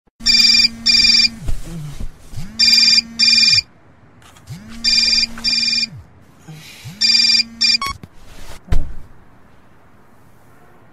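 Telephone ringing in a double-ring cadence: four pairs of short electronic rings about two seconds apart, then a single sharp click.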